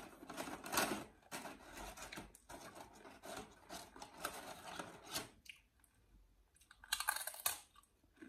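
Crinkling and rustling of paper takeaway food packaging as fries are picked from it, with a louder rustle about seven seconds in.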